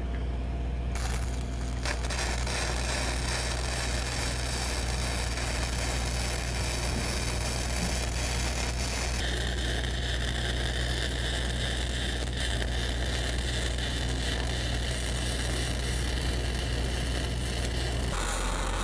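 The diesel engine of a Lincoln Dual Maverick 450 engine-driven welder runs with a steady low hum while two welding arcs crackle and sizzle, both of its outputs loaded at once. The crackle changes character about nine seconds in, and the engine note shifts near the end.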